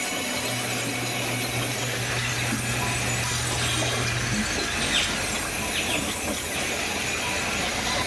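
Small sawmill's saw running and cutting through a log: a steady noisy hiss under a low hum that drops out for a few seconds about halfway through.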